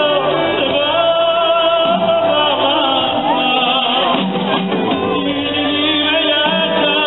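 Live band music with a man singing lead into a microphone, his voice holding drawn-out, wavering notes over the band.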